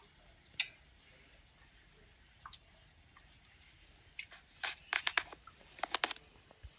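Scattered light clicks and taps, single ones at first, then two quick runs of them near the end.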